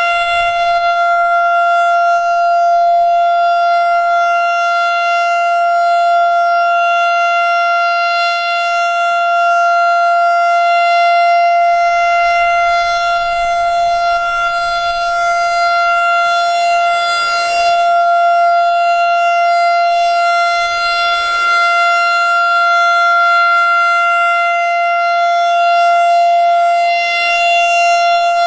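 Federal Signal STH-10 electromechanical siren sounding the steady Alert signal of a monthly test. It holds one steady pitch and swells and fades every few seconds as the rotating head sweeps past.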